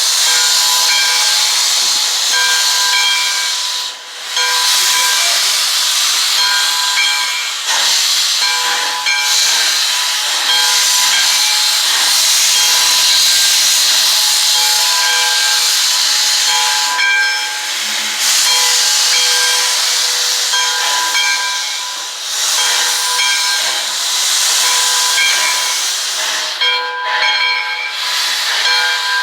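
Steam locomotive venting steam: a loud, continuous hiss with a faint whistling tone that comes and goes, and brief drops about four seconds in and near the end.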